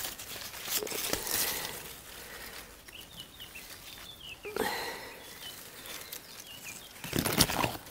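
Tomato plant leaves rustling as a hand pushes through the foliage and brushes the phone, loudest near the start and again near the end. A few faint, short bird chirps come in the quieter middle.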